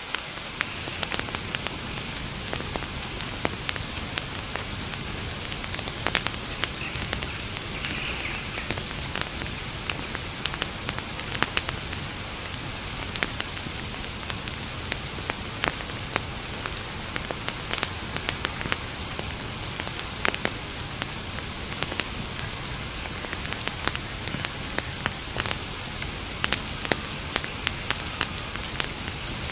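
Campfire crackling: a steady hiss with frequent sharp pops and snaps scattered throughout.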